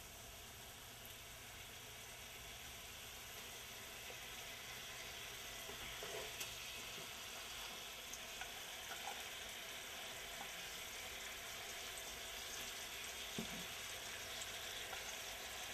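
Curry gravy simmering in a pan with a faint, steady sizzle, while fried fish are lowered into it with a slotted spatula, giving a couple of soft knocks.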